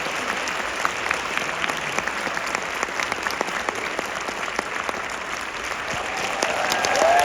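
A large theatre audience applauding steadily during a curtain call, a dense even clatter of many hands clapping. Near the end a held pitched sound rises over the clapping, and the applause grows slightly louder.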